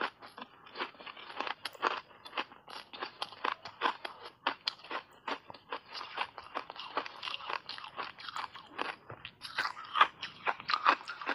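Ice chunks coated in matcha powder being crunched and chewed in the mouth: a quick run of sharp crunches, several a second, louder about ten seconds in.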